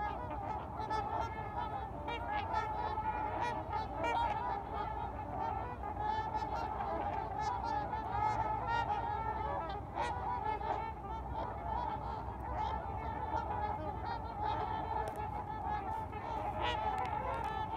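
A large flock of trumpeter swans on the water calling nonstop, a dense chorus of overlapping honks.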